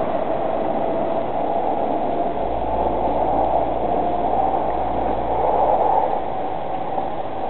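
SL X420 (X1) electric commuter train running, a steady motor whine over rumbling running noise, with a deeper rumble coming in a couple of seconds in.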